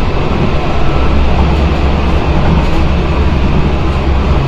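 Tram running at speed on its rails, a steady loud rumble of wheels on track heard from inside the car.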